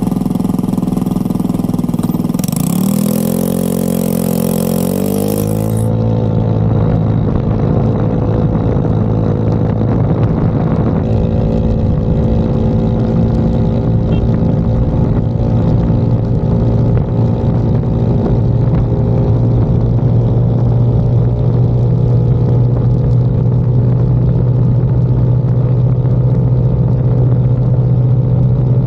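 Icebear Maddog Gen V scooter's single-cylinder engine pulling away from a stop at full throttle, its pitch rising over a few seconds and then holding a steady high drone while road speed keeps climbing to about 50 mph. A loud hiss comes in for a few seconds as it pulls away.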